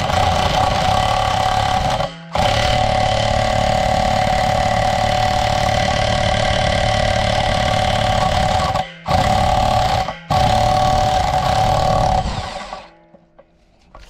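DeWalt electric impact driver with a long socket hammering the anode rod loose from the top of a water heater tank. It runs in long bursts with three brief pauses and stops near the end.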